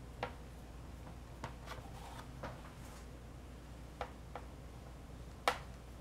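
A sharp kitchen knife cutting down through layered yeast dough, its blade tapping the baking sheet underneath: a handful of light, scattered clicks, the sharpest one near the end.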